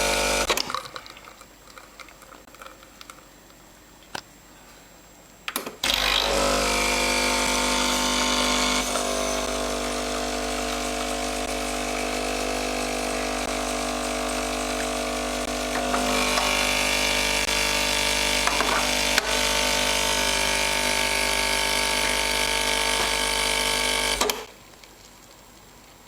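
Sage Barista Express espresso machine running with a steady hum and hiss. It stops about half a second in, starts again about six seconds in, and cuts off shortly before the end.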